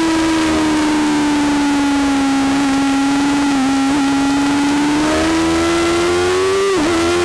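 Racing motorcycle engine at high revs, heard on board over wind noise. The note sags a little as the bike slows into a corner, then rises as it accelerates out, with a brief drop near the end for an upshift before it climbs again.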